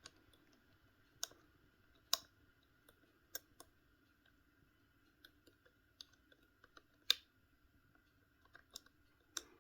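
Lock pick working inside an Era 975 padlock during single-handed picking: faint, irregular metallic clicks and ticks as the pick moves against the pins, a few louder clicks scattered through.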